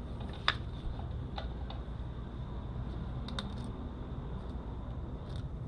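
A few light clicks and taps of old brake pads and caliper hardware being handled, over a steady low hum.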